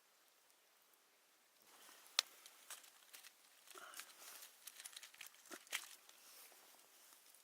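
Crinkling and rustling with several sharp clicks, starting about two seconds in and dying away near the end.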